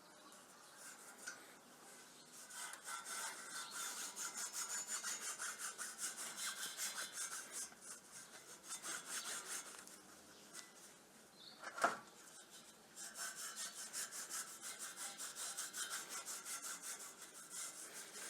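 Rhythmic back-and-forth hand rubbing on a cast iron door grid, about three strokes a second, in two spells with a short pause between, and a single sharp clink of metal about two-thirds of the way through.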